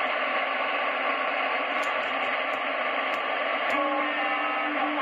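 President Benjamin CB base station receiving an empty channel: steady static hiss from its speaker as the channel is stepped. A few faint steady whistles come in near the end.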